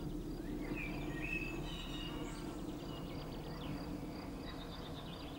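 Faint outdoor birdsong, a few short chirps and whistles, over a steady low hum.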